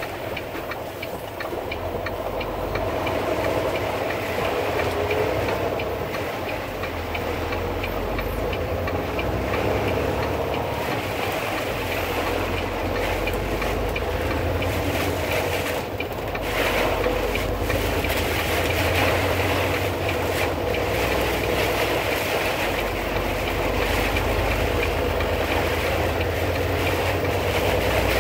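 Steady rumble and hiss of a vehicle driving on a rain-soaked highway, heard from inside the cabin: tyres on wet pavement with the engine underneath.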